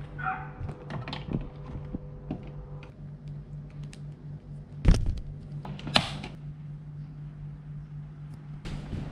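Small objects being handled on a bed: scattered clicks and light knocks from wired earphones and a smartphone, with two louder knocks about five and six seconds in, over a steady low hum.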